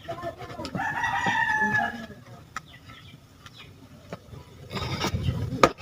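A rooster crowing once, a drawn-out call starting about a second in and dipping slightly at its end. A few faint clicks and rustles follow near the end.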